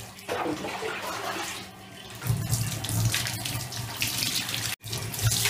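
Water poured from a jug over a shampooed cat to rinse it, splashing and running off into the bathtub.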